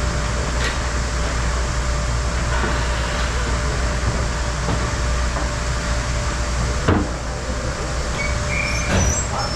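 Steady rumbling hum of a hockey arena, with sharp knocks about seven seconds in and again near nine seconds.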